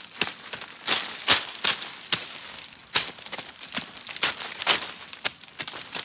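A small hand tool scraping and chopping into forest soil and leaf litter, in quick irregular strokes of about two a second, as a small hole is dug.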